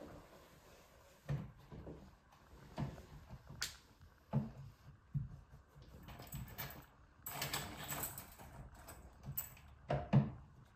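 Cloth wiping a wooden interior door, with soft knocks and a few clicks from the door and its handle as it is handled, and a stretch of rubbing about seven seconds in.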